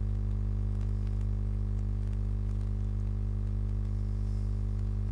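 Steady low electrical hum, like mains hum, with a few faint clicks.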